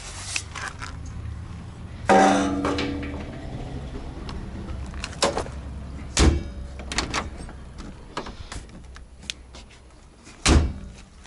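Handling noises at a ZAZ-968M Zaporozhets: a metal jerry can clanks with a short ringing note about two seconds in. Clicks and rattles follow, with two heavy thumps, about six seconds in and near the end, as the car door and old parts are handled.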